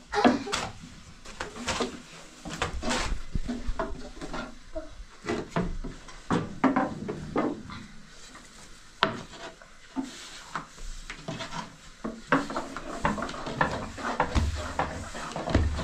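Irregular knocks, clatter and scraping of hard objects being handled.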